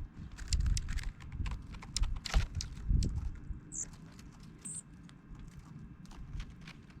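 Dark-eyed juncos: irregular sharp ticking and tapping, with two short high chip notes about four and five seconds in, over an uneven low rumble.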